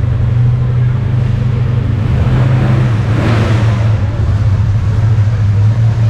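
Car engines running with a steady low rumble; a little over two seconds in, one car's engine swells louder for about a second and a half as it pulls away, then eases back.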